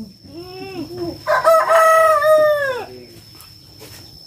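A rooster crowing: a few short notes, then one long held call that falls away at the end.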